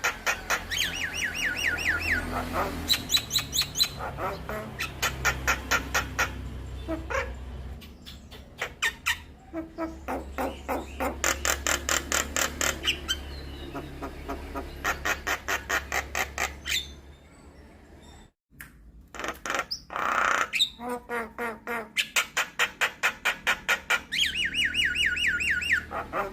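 Javan myna chattering: long runs of rapid, harsh repeated notes mixed with squeaky whistled glides, broken by a short pause about eighteen seconds in.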